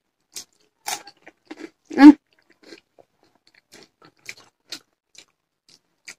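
Chewing and crunching of food eaten by hand: a scatter of short crisp bites and wet mouth clicks, with one louder brief hum-like mouth sound about two seconds in.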